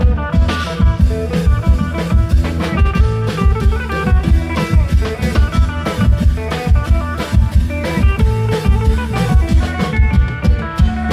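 Isan klong yao band music: long drums keeping a steady, driving dance beat under a plucked-string lead melody.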